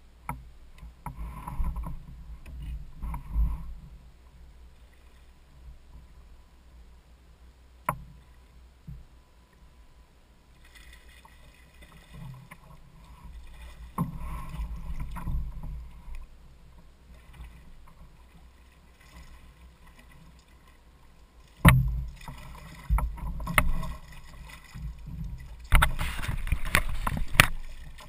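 Low rumble and scattered knocks on a Hobie Adventure Island kayak while a hooked fish is fought, with a sharp bang a little past the middle. Near the end the fish splashes loudly at the surface beside the hull as it is brought in.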